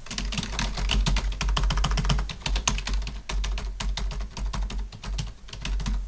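Logitech K400 wireless keyboard's non-mechanical keys being typed on rapidly: a dense, steady run of quick key clicks, not very loud at all.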